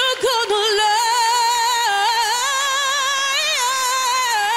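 A woman's solo voice belting long held high notes with a wide vibrato, moving between a few pitches, with little else heard beneath it.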